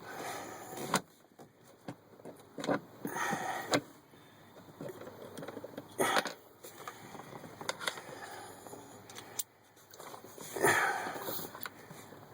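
Scattered clicks, taps and rattles of hand tools and screws being handled as the last screws of the heater core housing are driven in, with brief rustling between them.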